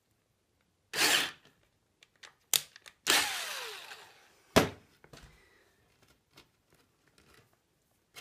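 Cordless drill run twice briefly with a 6 mm bit, widening a bolt hole in a wooden skateboard tail. The second run whirs down in pitch as it fades. A sharp knock follows, and then light handling clicks.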